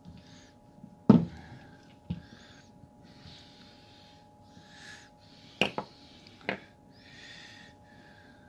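Paracord rasping and sliding as it is pulled through and tightened around a metal chain bracelet, with a few sharp clicks, the loudest about a second in.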